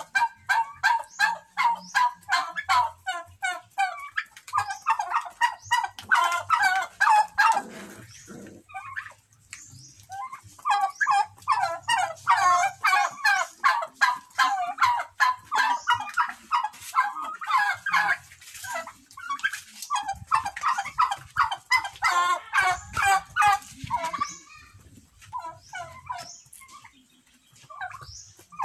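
A flock of poultry calling in fast, overlapping runs of short cries, with a brief lull partway through.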